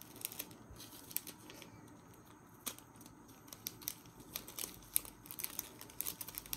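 Light crinkling and small sharp clicks of clear plastic packaging being handled by hand as a set of small items is gathered for bagging; irregular, getting busier in the second half.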